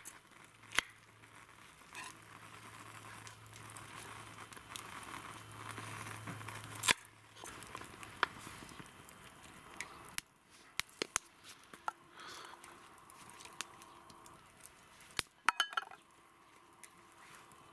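Cooking preparation: scattered sharp clicks and knocks from a kitchen knife on a wooden cutting board and a small metal cooking pot being handled, over a faint hiss. One louder knock about seven seconds in and a quick cluster of clicks near the end.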